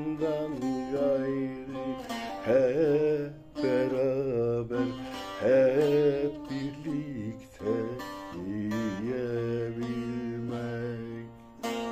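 Background music: an ornamented melodic line that slides between notes over a steady low drone, with plucked-string notes coming in near the end.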